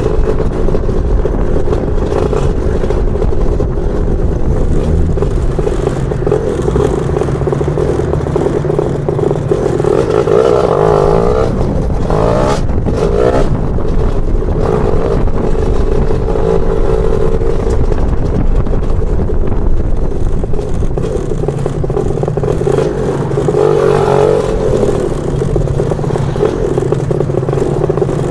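Lambretta scooter with a BFA 325 two-stroke engine running under way, its engine note steady, with the revs rising and falling about ten to thirteen seconds in and again near the twenty-four second mark.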